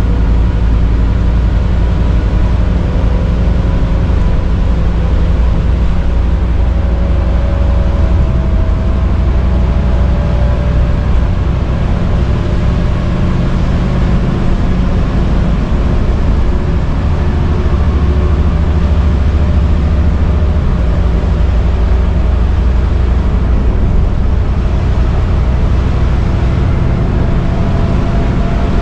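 Scania N230UD double-decker bus running on the road, heard from inside the lower deck: its five-cylinder diesel and drivetrain make a steady low rumble, with faint whining tones that drift slowly up and down.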